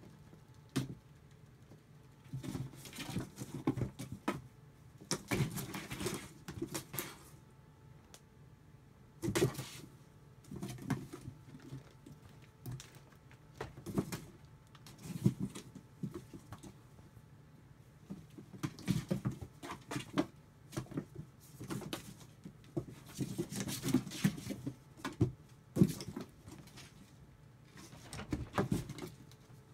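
Kittens scrabbling over a cardboard box: irregular bursts of claws scratching and paws pattering on the cardboard, with a few sharper knocks.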